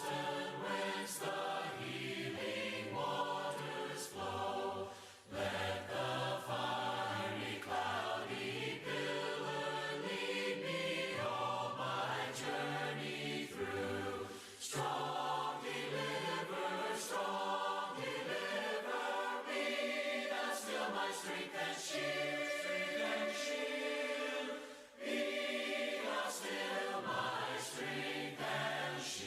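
Congregation singing a hymn a cappella, many voices together with no instruments, in phrases with brief breaths between them.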